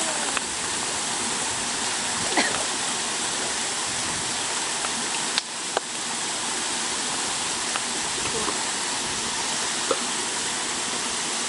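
Steady rushing water of a koi pond, with a few short sharp splashes from the surface where the fish crowd.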